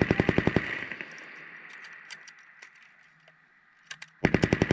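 M240 7.62 mm belt-fed machine gun firing short bursts at about a dozen rounds a second: one burst cuts off about half a second in and its echo fades, then a second burst starts near the end.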